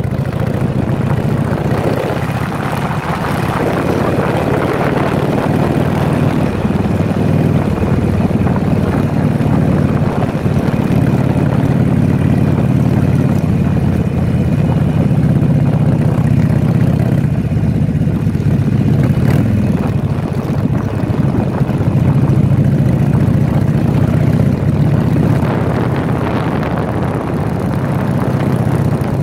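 Harley-Davidson Sportster V-twin engine running steadily while riding at speed, the loudness swelling a little through the middle.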